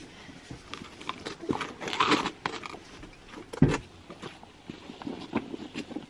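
Saddling a horse: scattered clinks, creaks and rustles of leather tack and buckles being handled, with footsteps shifting on gravel and one louder thump about three and a half seconds in.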